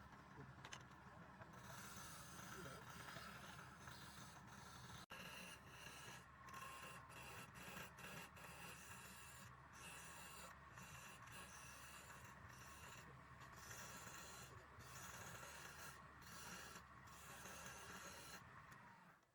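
Wood lathe running with a steady hum while a turning tool scrapes the spinning wood, the cutting noise breaking off briefly again and again.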